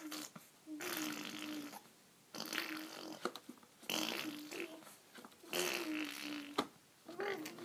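Baby making funny vocal sounds: about five drawn-out, buzzy noises in a row, each held on a steady pitch for a second or less, with short pauses between.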